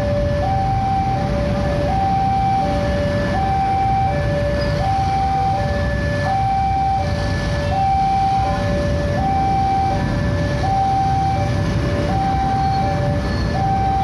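Level-crossing warning alarm sounding an electronic high-low two-tone that alternates steadily, the signal that a train is coming and the crossing is closed. Under it, a steady low rumble of motorcycle and car engines idling in the queue.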